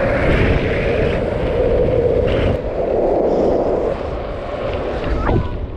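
Wind rushing over the microphone and longboard wheels rolling fast on asphalt during a downhill run, with a short falling squeal about five seconds in.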